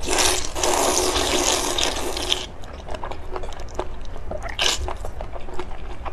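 A long, loud slurp of saucy fire-chicken noodles being sucked into the mouth, lasting about two and a half seconds. It is followed by wet chewing and smacking clicks, with a second short slurp about halfway through.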